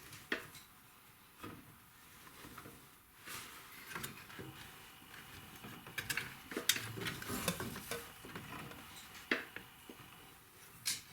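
Hand tools clinking on metal as the rear brake caliper bolts are worked with a hex key. The sound is scattered light clicks, scrapes and rattles, busiest in the middle.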